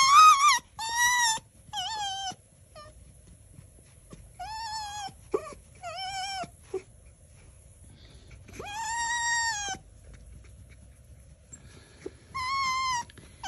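Silver fox squeaking while being petted on its belly: about seven high, wavering squeals, each half a second to a second long, with the longest about nine seconds in.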